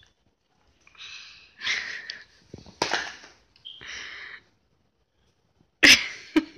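A toddler makes several short, breathy hissing noises close to the microphone, then there is one sharp, loud clack about six seconds in.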